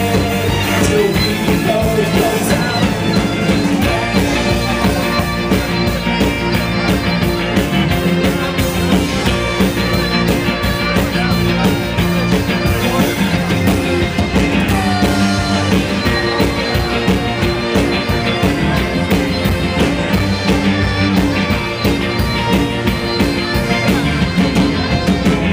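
Live band playing an uptempo folk-rock song on fiddle, accordion, electric guitar, upright bass and drums, with a steady drum beat.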